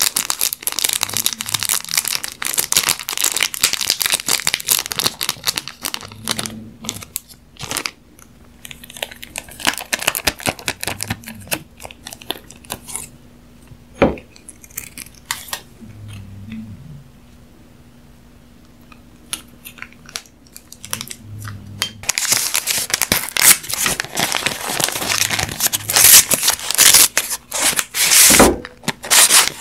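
Close-miked crinkling and tearing of plastic and paper packaging, with a single sharp scissor snip about halfway through as a soy sauce packet is cut open. Near the end, the paper sleeve of a pair of disposable chopsticks crackles loudly as it is torn off.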